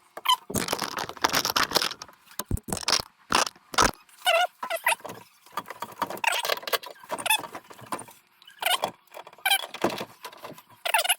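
Metal parts and tools being handled: a run of separate clinks, knocks and rattles with several short squeaks in between.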